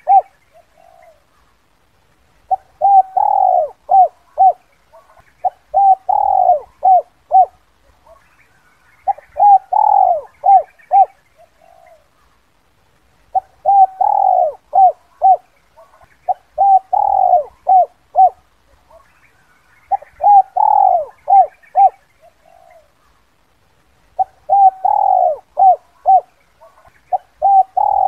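Spotted dove cooing its 'kuk 2' call, a phrase repeated about every three to four seconds. Each phrase is a run of short coos with one longer, louder coo near the start.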